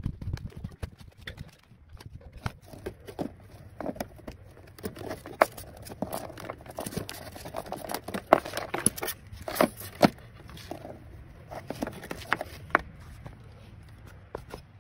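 Irregular knocks, taps and scrapes with crinkling, from hands working a screwdriver against timber and plaster among fibreglass ceiling insulation and cable. The knocks come thickest and loudest in the middle.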